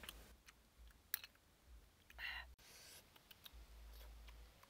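Near silence with faint scattered clicks and small sounds of eating, one sharper click about a second in and a brief voice-like sound about two seconds in.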